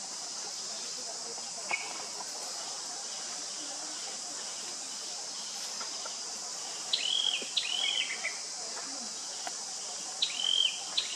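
Steady high-pitched drone of insects, with two short clusters of high chirping calls in the second half.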